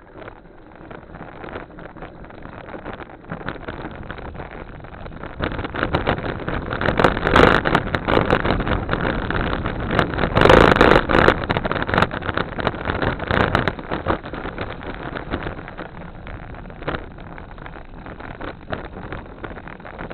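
Riding noise from a bicycle on a trail: wind rushing over the microphone with tyre rumble and frequent small rattles and knocks. It grows louder partway through, with two loud gusts, then eases off.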